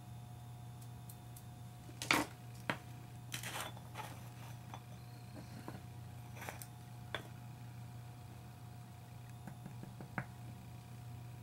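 Small plastic jars of embossing powder being picked up and set down on a tabletop: a few light clicks and knocks, the loudest about two seconds in, over a steady low hum.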